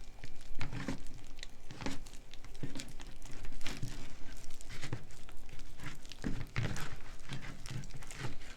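Hands kneading and squeezing freshly mixed snow slime (glue with instant snow powder), giving a run of irregular small crackles and clicks.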